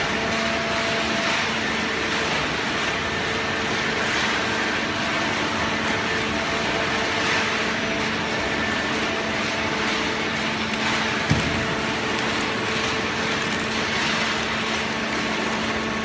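Automatic horizontal hydraulic cardboard baler running: a steady mechanical hum with a level tone, and a single knock a little past the middle.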